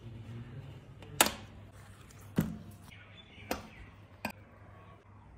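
Knife cutting a piece of leather on a glass tabletop: four sharp clicks about a second apart, the first the loudest.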